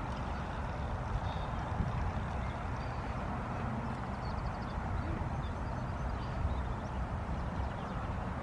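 Wind buffeting an unshielded microphone: a steady low rumble.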